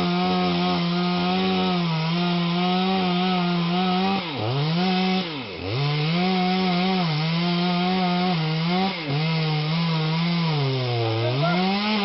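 Two-stroke chainsaw running at high revs while cutting into a tree trunk. Its pitch dips and recovers twice around the middle and once more, more slowly, near the end.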